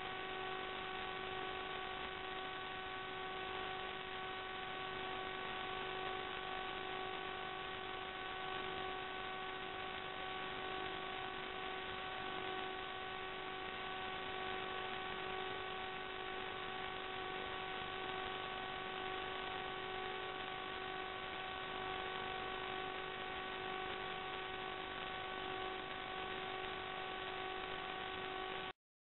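Steady electronic hiss with a constant whine of several fixed tones from the empty audio channel of an analog FPV video link, recorded by the DVR. It cuts off suddenly near the end.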